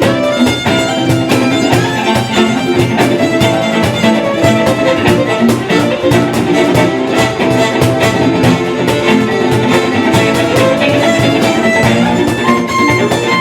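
A band playing an instrumental break with no singing: a fiddle carries the melody over strummed guitar and a steady beat.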